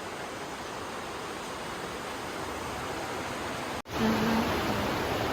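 The Aare river rushing through a narrow gorge: a steady noise of fast-flowing water. It drops out for an instant just before four seconds in and comes back louder.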